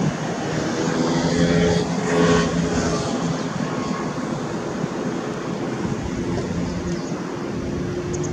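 Steady drone of an engine, a low pitched hum holding an even pitch.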